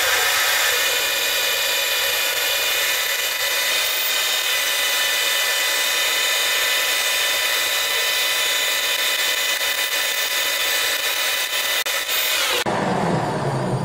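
Metal lathe running while a twist drill in the tailstock bores into the metal workpiece in the spinning chuck: a loud, steady, high-pitched machining noise. Near the end it changes to a lower running hum.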